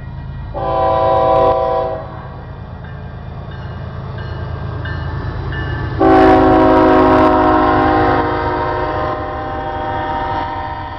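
Air horn of a Union Pacific SD70M diesel locomotive sounding for a grade crossing: a blast of about a second and a half, then a louder long blast starting about six seconds in and lasting about four seconds. Underneath runs the steady low rumble of the passing locomotives.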